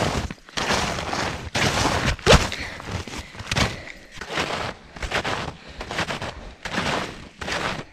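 Yukon Charlies snowshoes crunching into packed snow in steady walking steps, about three steps every two seconds.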